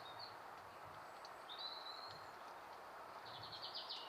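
Faint bird calls over a steady outdoor background hiss: a short call at the start, a longer call about a second and a half in, and a quick run of chirps near the end.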